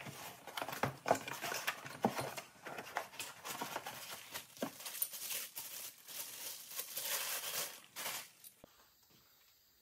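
Cardboard box flaps, packing foam and a plastic bag rustling and crinkling as a brass gas regulator is unpacked by hand, with many small clicks and scrapes; the handling stops about eight seconds in.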